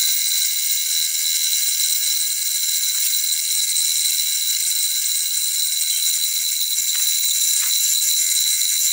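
Horizontal centrifuge spinning a mould of freshly poured molten aluminium for centrifugal casting. It gives a steady high-pitched mechanical whine with a fast, fine rattle.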